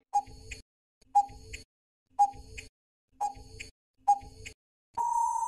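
Countdown timer sound effect: five short clock-like ticks, one a second, then a longer steady beep as the count runs out.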